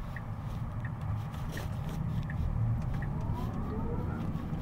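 Inside a Tesla Cybertruck's cabin: the turn signal ticks about every 0.7 seconds over a low road rumble, stopping about halfway through. Near the end the electric drive motor's whine rises in pitch as the truck speeds up.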